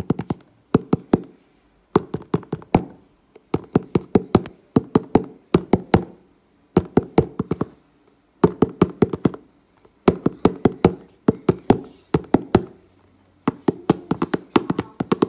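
Fingers poking and pressing into slime packed with small foam beads (floam) in a plastic tub, making bursts of sharp clicks and pops, a quick handful at a time, about once a second.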